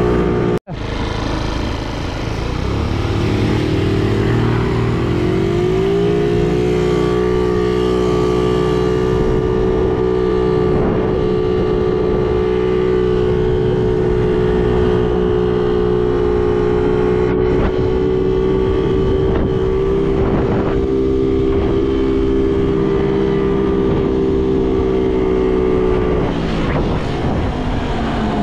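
A 50cc moped engine under way, heard from the rider's seat. After a very short break in the sound about half a second in, it revs up over a few seconds to a high, steady note. It holds that note, then eases off briefly near the end.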